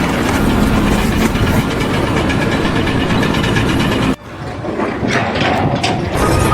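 A motor vehicle or machine engine running, a loud steady noise that cuts off suddenly about four seconds in, giving way to quieter, different sounds.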